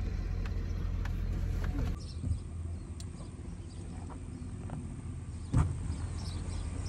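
A pickup truck's engine runs with a steady low rumble, heard from inside the cab. About two seconds in it gives way to quieter outdoor sound, with a single sharp thump about five and a half seconds in.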